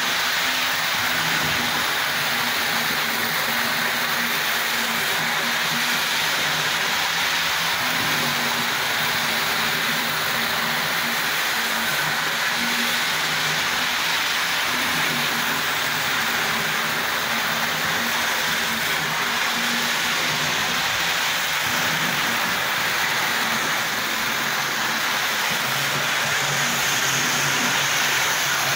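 Model railway train running on the layout: a steady hiss of wheels on the track with a low motor hum that wavers in pitch and strength.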